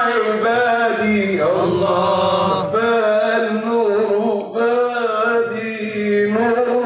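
Male voice singing a nasheed in long, held notes that bend and ornament the melody.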